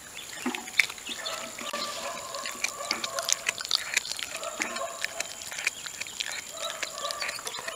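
Icelandic Sheepdog puppy chewing raw chicken wing: a busy run of wet clicks, smacks and crunches as it works the meat and bone. A thin steady high insect drone runs underneath.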